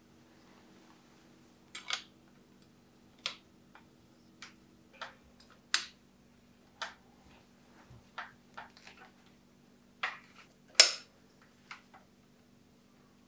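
Irregular sharp metallic clicks and taps of a hex wrench working a flat pedal's spindle as it is threaded into a bicycle crank arm, with the loudest click a little before the end.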